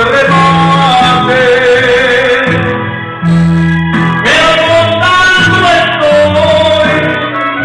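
A man singing into a microphone over loud backing music, holding long notes.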